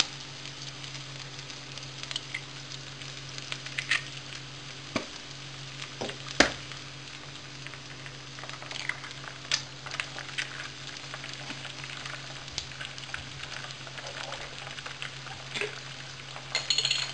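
Diced boiled potatoes sizzling and crackling in hot fat in a frying pan, with sharp taps as eggs are cracked and dropped in, the loudest about six seconds in. A steady low hum runs underneath.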